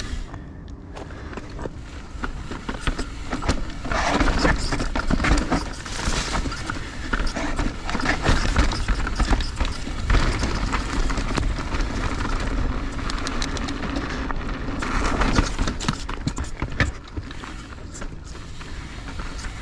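Mountain bike riding down a dirt trail: tyres rolling over dirt, with irregular clicks and rattles from the chain and frame over bumps, and wind rushing over the microphone, louder in several swells.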